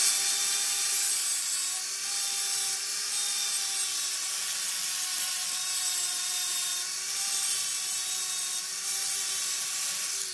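Power grinder running steadily against a steel lawnmower blade: a steady motor whine under a loud grinding hiss, with a few brief louder scrapes, starting to wind down at the very end. The heavier side of the blade is being ground off to balance it.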